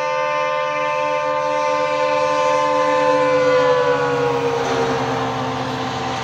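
Indian Railways WDP4 diesel locomotive's horn sounding one long continuous blast as it approaches at speed. About four seconds in, the pitch drops as the locomotive passes, and the rush and rumble of the passing train takes over while the horn carries on lower.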